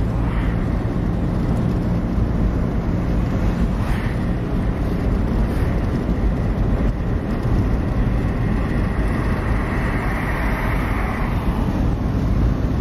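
Car on the move: steady engine and road noise with wind rush.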